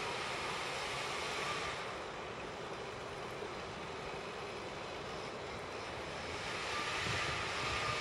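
Steady distant outdoor noise, an even hiss with a faint high whine that drops out about two seconds in and comes back near the end.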